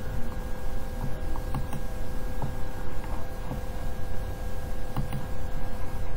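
Steady low hum and a thin steady electrical whine from the recording's background noise, with a few faint clicks from a computer mouse.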